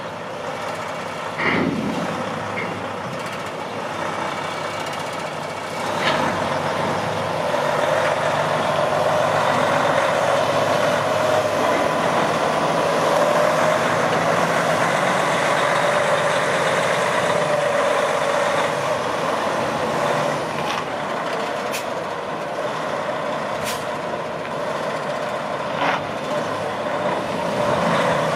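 Freightliner Cascadia day cab's heavy diesel engine running and pulling the tractor away, getting louder about six seconds in and then holding steady. A few short hisses from the air brakes come through it.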